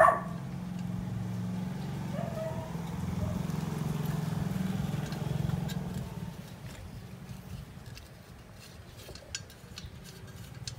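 A small engine running with a steady low drone that fades away between about six and eight seconds in.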